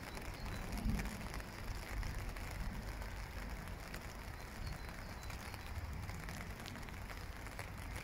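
Outdoor garden ambience: a steady hiss with an uneven low rumble of wind on the microphone.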